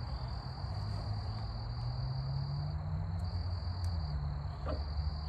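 Steady high insect drone over a low, steady hum, with a few faint clicks of hands working on the mower's fuel line.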